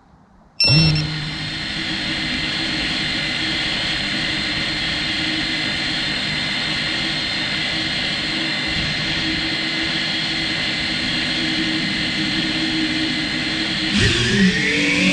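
Electric motors of an FPV quadcopter start abruptly about half a second in and run at a steady whine. Near the end the pitch begins sliding up and down.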